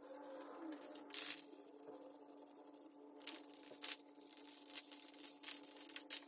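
Aerosol spray-paint can hissing in about six short bursts, a few spaced about a second apart, as paint is sprayed onto wood.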